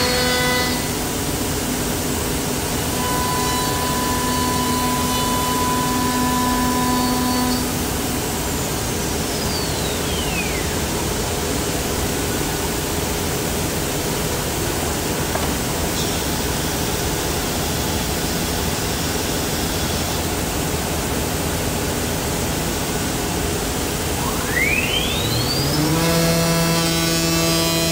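Woodworking CNC router running over a steady rush of dust extraction. About eight seconds in its spindle whine falls away as the spindle spins down. Near the end it rises again as the spindle spins back up to a steady hum.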